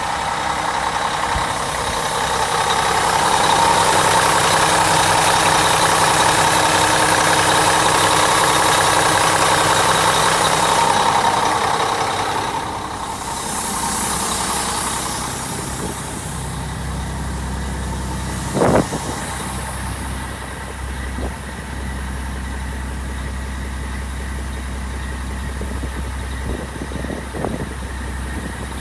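1998 Mack CH613 tractor's diesel engine idling steadily, louder for the first ten seconds or so. A single sharp knock comes about two-thirds of the way through.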